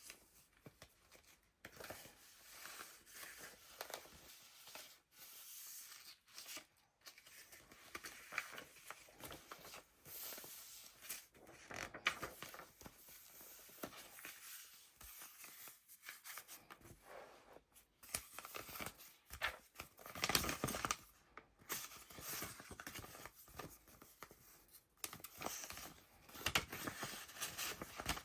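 Pages of a handmade paper junk journal being turned and handled: irregular rustling and crinkling of layered paper and card, with small taps and flicks.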